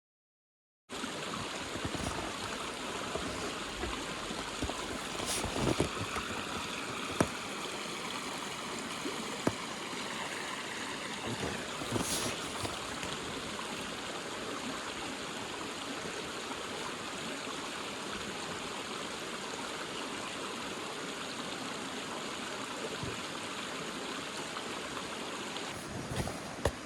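A steady rushing noise, with a few sharp clicks about five, seven and twelve seconds in.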